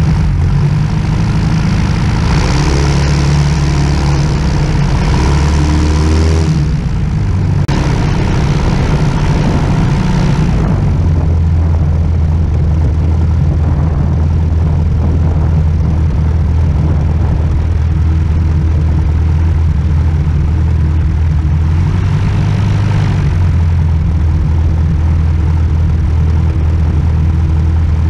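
A Sonex light aircraft's engine and propeller running steadily at idle while it taxis. Spells of louder rushing noise come and go a few seconds in and again later on.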